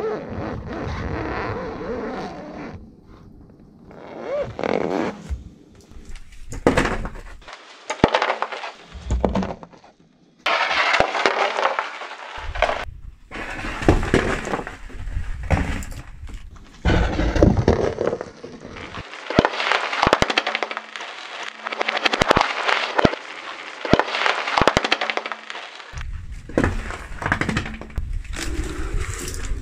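Car tyre rolling over and crushing objects one after another: repeated cracking, crunching and snapping of plastic and other crunchy material, with short pauses between the clips.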